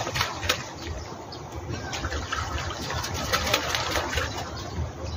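Domestic geese bathing in a shallow stream, beating their wings on the water and splashing; the sharp splashes fade out about half a second in, leaving softer water and wing noise.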